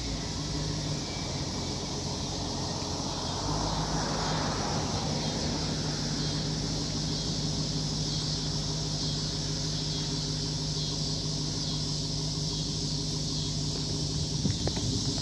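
Dodge Hellcat's supercharged V8 idling steadily, the engine note stepping up slightly about three and a half seconds in, over a steady high hiss.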